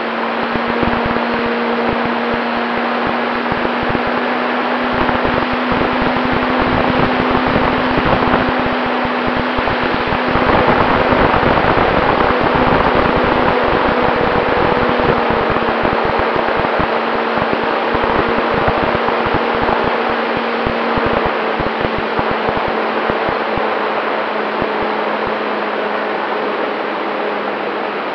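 Onboard sound of a radio-controlled Cessna 188 scale model plane in flight: its motor and propeller make a steady drone over a rush of wind, with wind buffeting the microphone. About ten seconds in, the drone rises a little in pitch and grows louder, then slowly eases back down.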